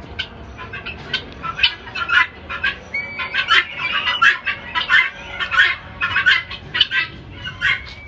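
Helmeted guineafowl calling in a rapid string of short, repeated notes, louder from about three seconds in.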